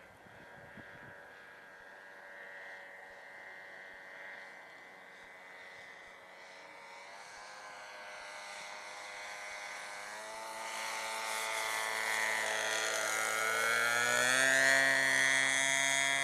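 Radio-controlled model airplane's engine droning steadily, growing louder as the plane approaches, its pitch rising about two-thirds of the way through.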